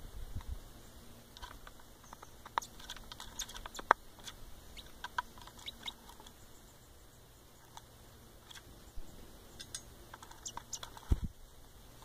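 Great tit and blue tit pecking rolled oats from a plastic bowl: irregular sharp taps and clicks of beaks on the oats and plastic. A single dull thump comes near the end.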